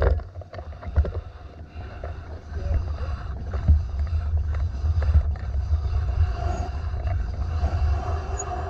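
Heavy wind buffeting on the microphone, with a faint, steady engine tone underneath.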